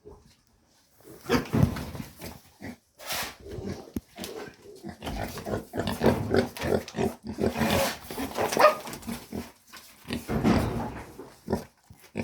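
Pigs grunting: a run of short, loud calls with brief gaps between them, starting about a second in.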